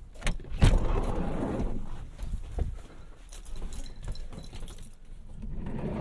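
Handling noises: a few sharp knocks and clicks with rustling between them and a light jingle of keys, the loudest knock about half a second in.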